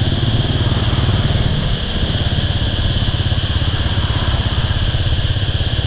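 Motorbike engine running at low riding speed, a fast steady low pulsing, with a steady high-pitched hum above it.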